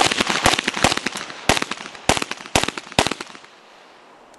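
Handgun firing a rapid string of shots at practice targets, fast for the first second, then slowing to spaced singles and pairs. The last shots come about three seconds in.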